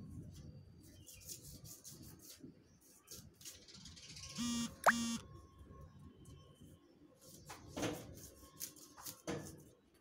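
Dry wheat stalks and straw crackling and rustling as they are handled. About four and a half seconds in come two short buzzy beeps in quick succession, with a sharp rising chirp between them.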